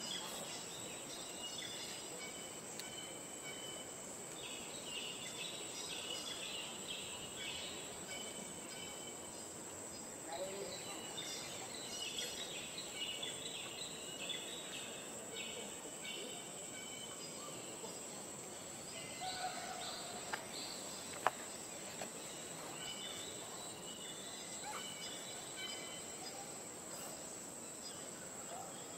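Outdoor forest ambience: a steady high-pitched insect drone, with patches of bird chirps coming and going. One sharp click sounds about two-thirds of the way through.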